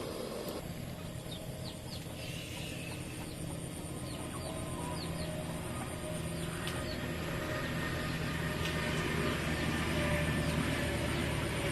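Chickens clucking, with short high chirps over a steady low hum that grows a little louder in the second half.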